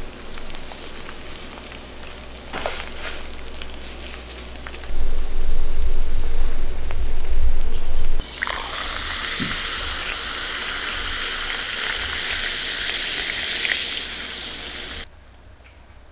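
Okonomiyaki sizzling on an electric griddle. A loud low rumble runs for about three seconds midway, then a strong, steady sizzle that cuts off suddenly about a second before the end.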